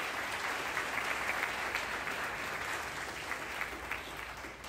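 Audience applauding, a mass of hand claps that tails off near the end.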